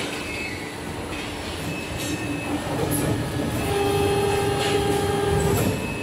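Plastic injection moulding machines running: a steady mechanical din, with a whine that holds for about two seconds in the second half.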